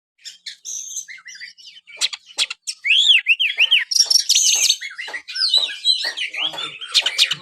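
Oriental magpie-robin (kacer) singing a fast, varied song of chirps and whistles, with runs of quickly repeated arched notes.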